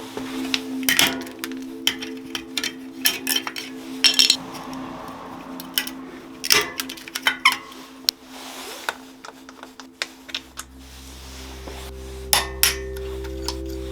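Metal tools and bicycle parts clinking and tapping in irregular knocks during bike work, over background music with held notes; a deep bass note comes in about two-thirds of the way through.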